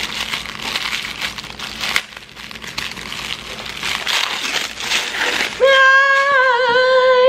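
Plastic bag and wrapping paper crinkling and rustling as a small item is unwrapped by hand. Near the end a woman sings one long, slightly wavering note, louder than the rustling.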